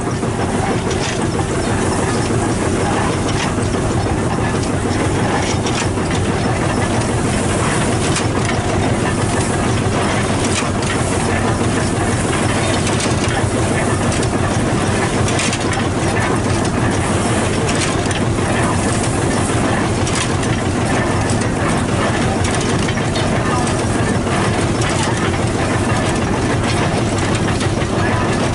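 Field-Marshall tractor's single-cylinder two-stroke diesel engine running steadily, its exhaust beating evenly.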